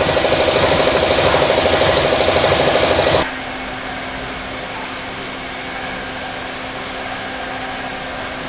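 Loud, steady factory machinery noise with a dense buzzing hum. About three seconds in it drops suddenly to a quieter steady hum carrying one low tone.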